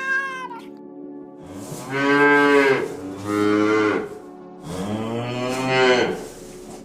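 Cow mooing: three long, low moos, the last the longest, after a brief high-pitched call at the very start.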